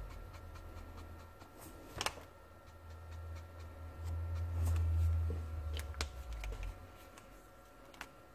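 Black marker shading on kraft paper: faint scratching strokes of the tip, with sharp ticks about two, six and eight seconds in and a low rumble around the middle.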